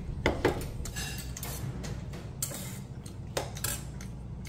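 Metal chopsticks clinking and scraping against a stainless steel bowl while eating, a few sharp taps with two close together near the start, over a steady low room hum.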